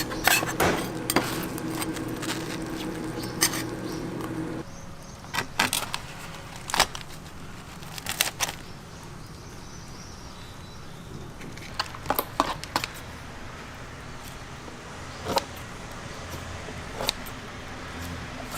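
Food sizzling on a griddle until it cuts off about four and a half seconds in, then scattered metallic clinks and clatters of cooking utensils over a low traffic hum.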